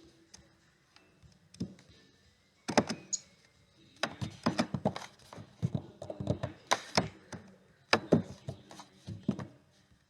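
Plastic Lego Technic parts being handled and fitted together: irregular clusters of sharp clicks and knocks, busiest from about four seconds in.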